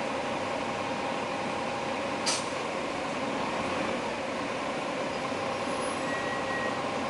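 Dennis Dragon double-decker bus engine running with a steady drone, heard from inside the passenger cabin, with a short hiss of air from the air brakes about two seconds in.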